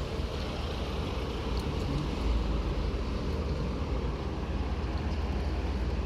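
Steady low vehicle rumble with an even hiss over it, unchanging throughout.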